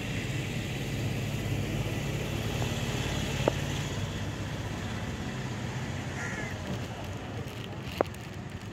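A vehicle engine idling with a steady low hum that fades somewhat in the last few seconds, over general outdoor traffic hiss. Two sharp clicks, one about three and a half seconds in and one near the end.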